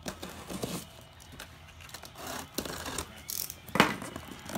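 Utility knife slitting the plastic wrap and tape on a cardboard shipping box, then the plastic wrap crinkling and tearing as hands pull it open, with a sharp crackle near the end.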